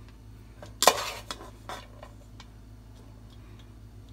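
A plastic rice paddle scoops cooked rice, giving one sharp clatter against the pot a little under a second in, then a few lighter taps, over a steady low hum.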